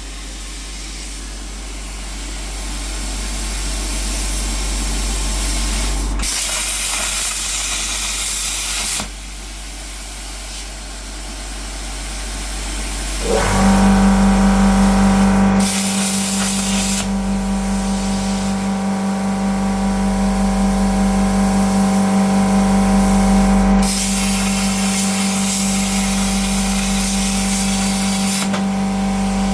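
Plasma cutter's arc hissing in several bursts, each switching on and off sharply, over a steady electrical hum: the torch firing and cutting 3 mm steel sheet. About 13 seconds in, a motor starts with a brief rising whine and then runs as a steady drone.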